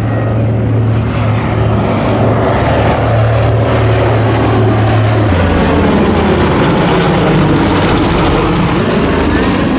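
Four radial engines of a B-24 Liberator bomber passing low overhead: a loud, steady propeller-engine note that drops in pitch about halfway through as the plane goes by.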